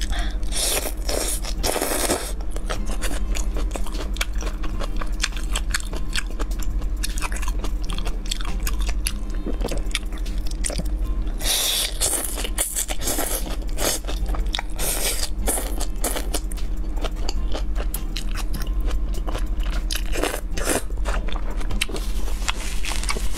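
Close-miked mouth sounds of eating spicy skewered cabbage strips: continual crunching and wet chewing. Twice there is a louder sucking slurp as a long strip is drawn into the mouth, once about a second in and again about halfway through.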